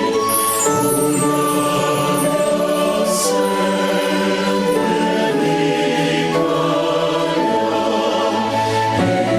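Choir singing church music, with long held notes that shift every second or so.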